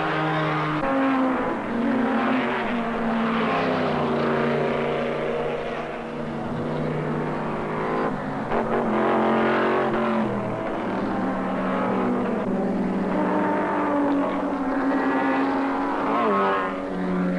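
Racing sports-car engines running hard as cars lap the circuit and pass, the engine pitch holding, stepping between levels and rising as they accelerate.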